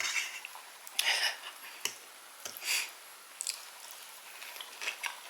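Close-miked chewing and wet mouth sounds of a person eating a baked scallop: short, uneven bites and squishes about a second apart, with a few small clicks.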